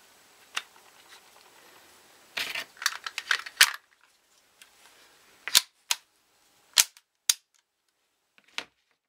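Ruger 22/45 Lite pistol's mechanism being worked by hand: a quick cluster of metallic clicks and snaps, then five single sharp clicks spaced irregularly over the next few seconds.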